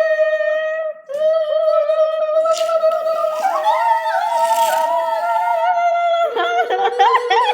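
A girl's voice singing a long, steady held note, which breaks once about a second in and then carries on. A second voice joins a little before halfway, and the sound turns more talk-like near the end.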